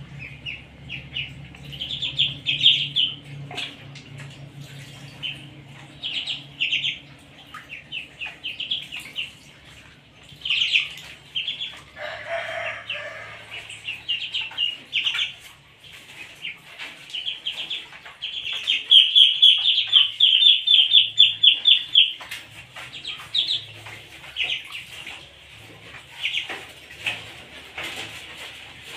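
Ducklings peeping, in repeated runs of short high calls, with the longest and loudest run about two-thirds of the way through.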